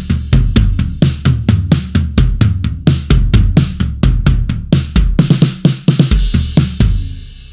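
Sampled acoustic drum kit from the Blasting Room Signature Series Kontakt library playing a fast, steady groove of kick, snare and cymbals. It ends on a crash that rings out and fades near the end.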